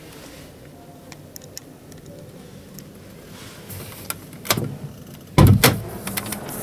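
Handling sounds on a car's interior door trim. Light scattered clicks and ticks come first, then a sharper click about four and a half seconds in and a dull thump with a few quick knocks near the end, as a hand grips and works the plastic door pull.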